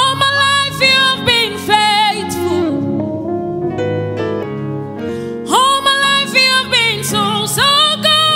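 A woman singing a gospel song into a microphone over sustained keyboard chords: one sung phrase with wavering runs at the start, the keyboard alone for a few seconds, then a second phrase from about two-thirds in.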